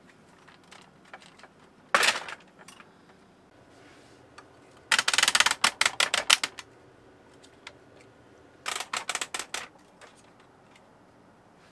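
Hands handling a large plastic toy figure: a short sharp burst about two seconds in, then two runs of rapid clicks at about ten a second.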